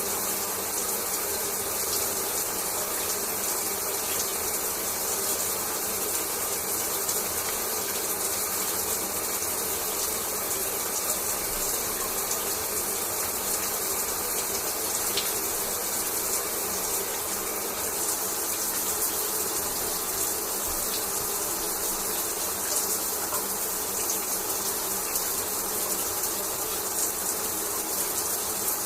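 Shower running steadily: a constant hiss of water spraying and splashing, with no change in level.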